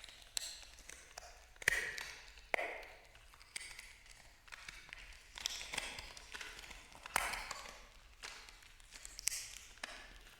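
Sharp taps at irregular intervals, roughly one a second, each with a brief ringing tail.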